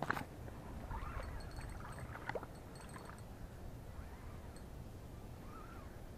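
Outdoor ambience at the water's edge: a steady low rumble of wind on the microphone with faint water sounds. There is a sharp click right at the start and a few faint short chirps in the first few seconds.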